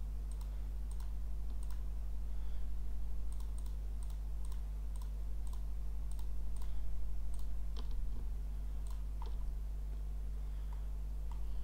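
A computer mouse clicking again and again at an uneven pace, selecting one item after another, over a steady low hum.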